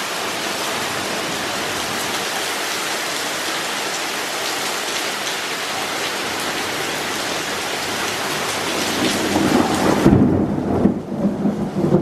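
Heavy rain pouring down in a steady, loud hiss. Near the end, low rumbling thunder swells, and the rain's hiss falls away abruptly, leaving the rumble.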